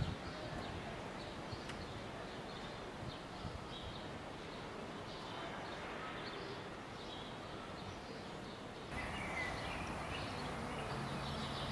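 Outdoor ambience: a steady background of noise with short, scattered bird chirps. The background steps up a little louder about nine seconds in.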